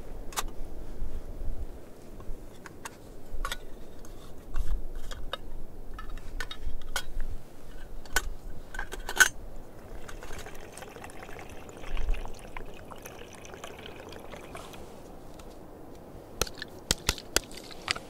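Small camp-cooking gear being handled: scattered clicks and clinks, then a few seconds of liquid trickling and pouring from about ten seconds in, and a quick run of sharp clicks near the end. Wind rumbles on the microphone at times.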